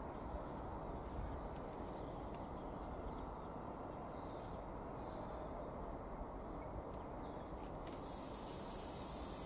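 Steady outdoor background noise with faint high chirps here and there; a high hiss comes in about eight seconds in.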